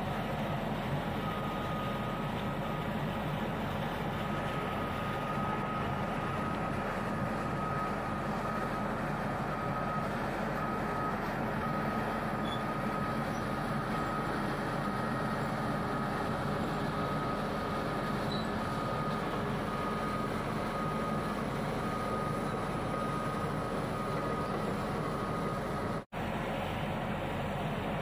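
Crawler bulldozer's diesel engine running steadily, with a reversing alarm beeping in a fast repeating pattern over it for most of the time. The sound cuts out for an instant near the end.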